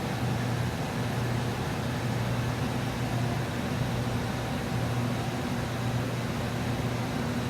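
Steady electrical and mechanical hum: a low mains-type buzz under an even hiss, as from running fans or powered equipment, unchanging throughout.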